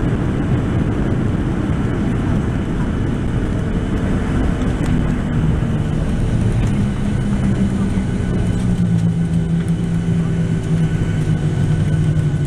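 Cabin noise of a Boeing 737-700 slowing on the runway after landing: a steady low rumble of engines and wheels, with an engine hum that grows clearer about halfway through.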